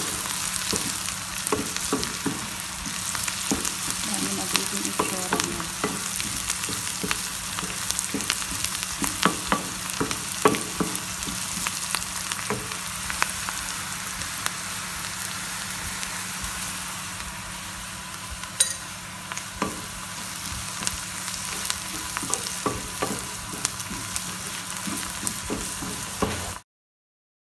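Chopped onions frying in hot oil with dried black lime powder, sizzling steadily while a wooden spoon stirs them, with frequent small knocks and scrapes of the spoon against the pan. The sound cuts off suddenly near the end.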